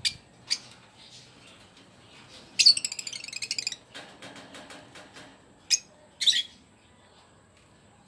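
Small caged parrots calling: a couple of sharp, shrill single calls, then about a second of rapid high chattering a little before the middle, and two more sharp calls later on.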